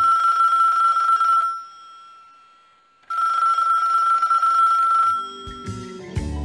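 Old-fashioned telephone bell ringing twice, each ring lasting about two seconds with a pause between. Music comes in near the end.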